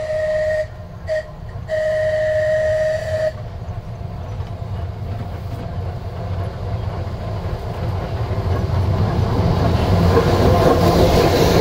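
Electric locomotive's horn held on one steady note, broken twice briefly about a second in, then cut off about three seconds in. After that the rumble of the vintage electric train on the metre-gauge track grows steadily louder as the locomotive and its coaches pass close by near the end.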